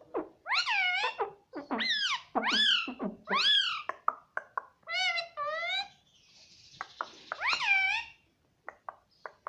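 Pet parrot calling repeatedly: about seven loud squawks, each rising and then falling in pitch, with a raspy hiss about two-thirds of the way through and small clicks between the calls.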